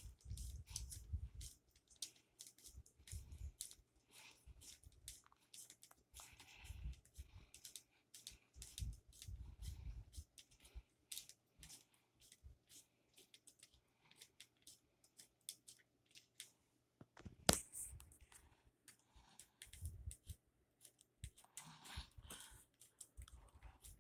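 Faint, rapid clicking and rattling of Lego Technic plastic gears and parts being turned by hand to raise a toy crane's boom, with soft low thumps of handling and one sharper click about 17 seconds in.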